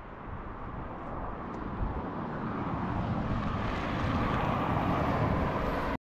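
A car approaching on the road, its tyre and engine noise growing steadily louder.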